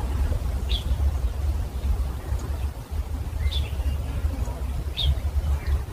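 Outdoor ambience: a steady low rumble and hiss, with a few short high bird chirps spread through it.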